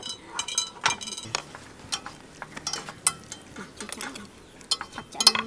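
Chopsticks tapping and scraping on a tabletop grill pan, with irregular clicks and clinks, and a louder flurry of clicks near the end.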